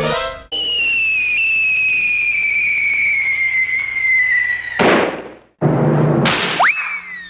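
Cartoon sound effects: a long whistle slowly falling in pitch for about four seconds, cut off by a short burst like an explosion, the classic falling-bomb gag. About six seconds in, another noisy burst is followed by a quick whistle that swoops up and then slides down.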